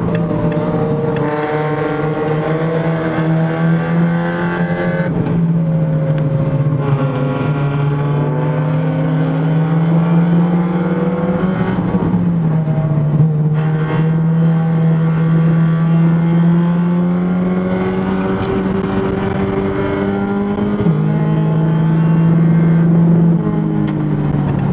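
Mazda Miata race car's four-cylinder engine heard from inside the cabin under racing load. Its note climbs and falls with the throttle and steps in pitch suddenly a few times at the gear changes.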